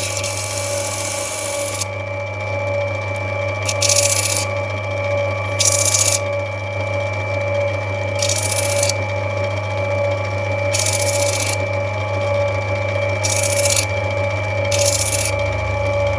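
Lapidary grinding machine running with a steady motor hum, and a hissing grind each time a rough opal is pressed to the wheel to take an edge off. The stone touches the wheel about seven times, each contact under a second long and a couple of seconds apart.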